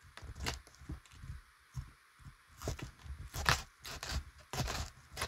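Trading cards and a card box being handled and set up on a playmat-covered table: a series of irregular light taps, scrapes and rustles, several to the second at times.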